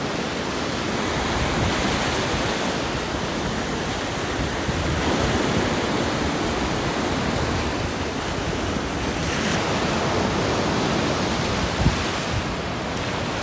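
Ocean surf breaking and washing up a sandy beach: a steady rushing that swells and eases slowly, with some wind on the microphone.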